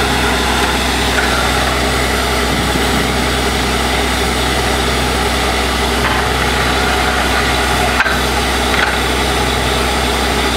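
Truck-mounted borewell drilling rig running: a loud, steady engine drone with a constant deep hum underneath.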